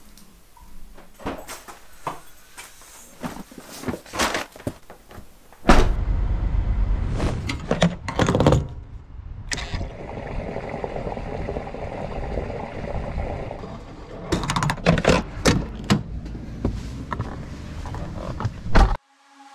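A run of knocks and clunks, then about six seconds in a sudden steady low rumble of a vehicle engine running, with more thuds of doors and gear over it.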